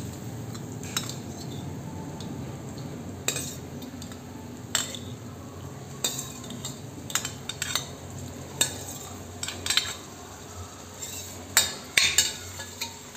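Paneer cubes, peas and masala sizzling in a non-stick frying pan, with a steel spoon clicking and scraping against the pan about a dozen times, in a quick cluster near the end.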